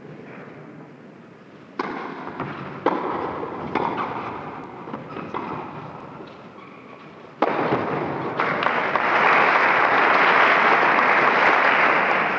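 Tennis rally: a string of sharp racket-on-ball hits about a second apart. Then, about eight seconds in, the audience breaks into loud applause as the point ends.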